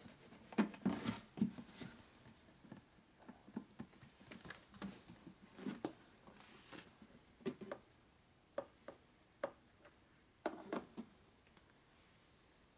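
Scattered light clicks and taps as plastic oil bottles and a metal funnel are handled on a workbench, with quiet gaps between them.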